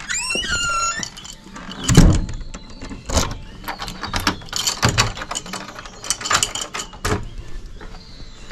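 Wooden door creaking open with a squealing hinge, then a heavy thud about two seconds in, followed by scattered clicks and knocks of its metal lever handle and latch.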